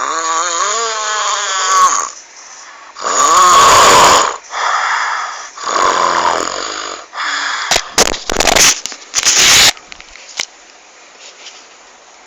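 A person snoring loudly with a croaking, frog-like sound: three long rasping snores, the first one wavering in pitch, then a cluster of short harsh snorts about eight to ten seconds in, after which it gets much quieter.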